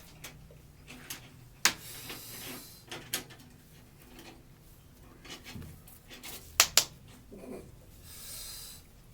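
Monkey clapping: a few sharp, irregular claps, two of them close together about two-thirds of the way in.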